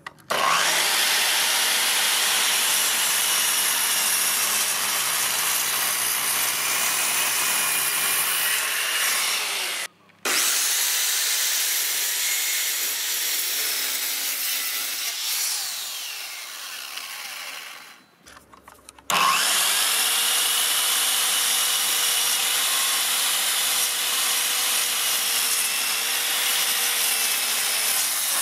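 Parkside PZKS 2000 B2 sliding compound mitre saw, a 2000 W motor driving a 24-tooth blade, running with a steady whine and cutting through a 65 mm thick softwood board at its maximum cutting height. The sound comes in three stretches, broken by two brief dropouts about ten and eighteen seconds in.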